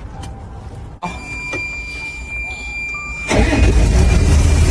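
Wheel loader's diesel engine running low, then coming up suddenly much louder about three seconds in, as the machine is run to test a replacement alternator regulator.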